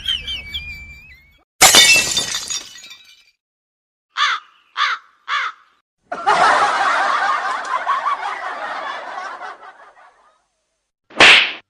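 A run of separate comedy sound effects: a sudden crash like breaking glass that fades over about a second, then three short calls like crow caws, then about four seconds of dense chattering, and one short loud burst near the end.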